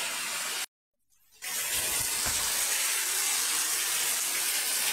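Heavy rain pouring down, a steady even hiss. It breaks off to silence for under a second near the start, then resumes.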